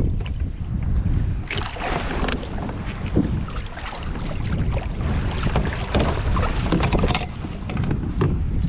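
Strong wind buffeting the microphone in gusts, with water splashing and slapping against a kayak hull on choppy sea.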